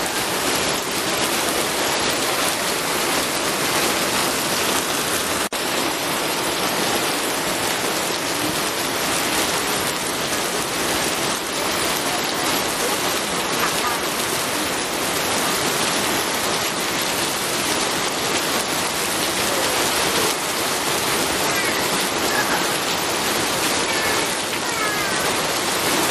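Steady rain, a dense, even hiss of falling water, with a momentary dip about five seconds in.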